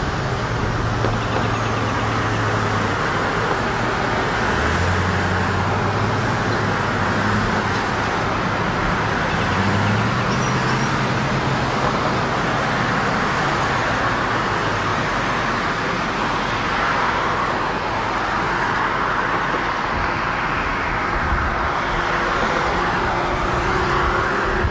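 Distant CSX diesel freight locomotives running, a low engine hum that shifts in pitch a few times, over a steady wash of noise.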